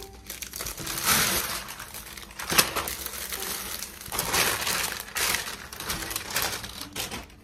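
Plastic packaging crinkling and rustling as a grey plastic mailer bag and clear plastic wrapping are handled and pulled open. It comes as a series of loud rustles, with a sharp crackle about two and a half seconds in.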